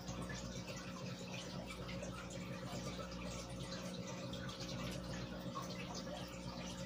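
Aquarium aeration bubbling: a steady stream of fine air bubbles from an airstone and sponge filters rising and popping at the water surface, with many small crackling pops over a steady low hum.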